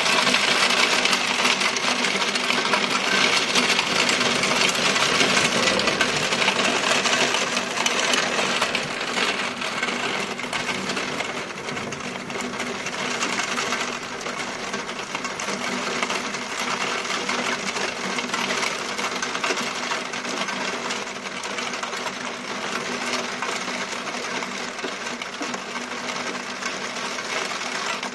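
Heavy downpour in a thunderstorm: a dense, steady hiss of rain with rapid pattering of drops on window glass, easing slightly after about ten seconds. A faint steady hum runs underneath.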